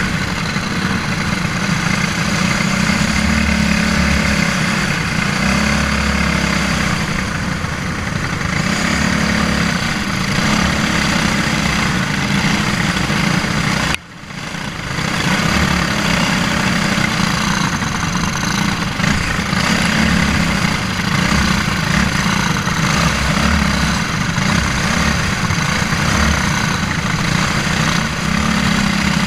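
Briggs & Stratton Animal four-stroke single-cylinder kart engine running at racing speed, heard onboard with rushing air noise. Its note rises and falls through the corners. The sound drops out for a moment about halfway through, then comes back.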